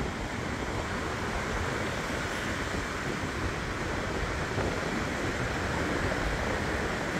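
Steady wash of ocean surf breaking on the shore, mixed with wind rumbling on the microphone.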